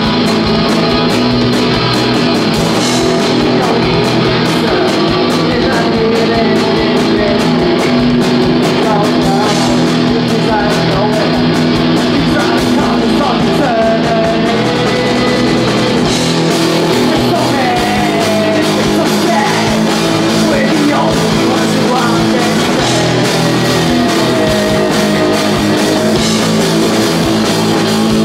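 Live rock band playing loud: electric guitar, electric bass and a drum kit, with a male voice singing over them.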